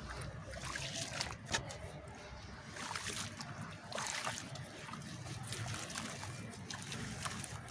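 Chunks of dry red clay crumbling apart in water, making a soft trickling with scattered small crackles and little splashes.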